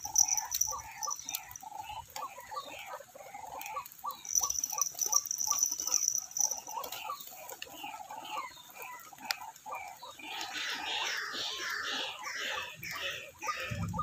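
White-breasted waterhens calling: a long run of rhythmic repeated notes, about three a second, that turns denser and higher-pitched from about ten seconds in. A high steady buzz sounds at the start and again from about four to seven seconds in.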